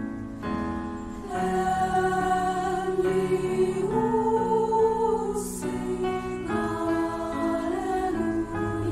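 A student choir singing a slow Christmas song in long held notes.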